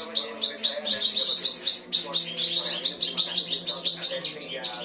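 Cucak cungkok singing a fast, continuous chattering song of rapid repeated chirps, about five or six notes a second, in the kinoi-style phrasing it was trained on.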